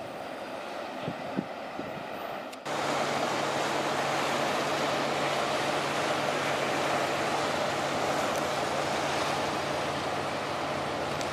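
Faint rumble of a freight train rolling away, then after a sudden cut about two and a half seconds in, the louder steady drone of BNSF GE diesel freight locomotives under power as they pull a train out and gather speed.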